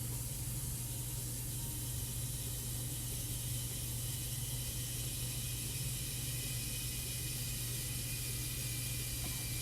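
Bathroom tap running in a steady hiss of water, with a low hum underneath.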